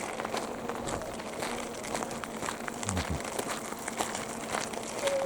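Footsteps crunching on the forest floor: a running patter of small crackles and clicks.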